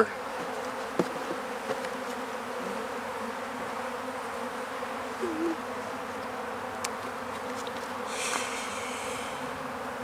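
Honeybees buzzing steadily around an opened, dead hive; the beekeeper takes them for robber bees from other colonies carrying off the last of its honey. A single sharp knock about a second in, with light scrapes later, as a hive tool pries a wooden frame loose and it is lifted out.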